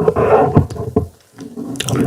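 Loud, wet mouth sounds of someone eating fufu with soup close to the microphone, in two stretches.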